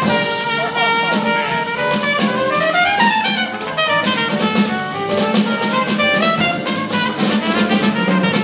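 Jazz trumpet soloing on a blues in F, with upright bass and drum kit accompanying. Quick runs of notes, with an upward sweep about two to three seconds in.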